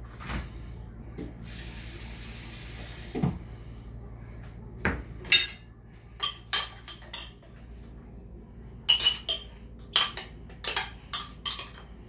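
A kitchen tap runs for about two seconds near the start. Then a spoon clinks and scrapes against a glass bowl as a seasoning mix is stirred, with quick sharp clinks in the last few seconds.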